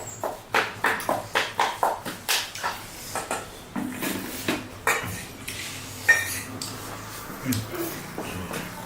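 Close-up eating of crunchy pani puri shells: a steady run of crunching chews, about three or four a second, for the first few seconds. Then softer mouth and eating sounds, with one sharp clink of tableware about six seconds in.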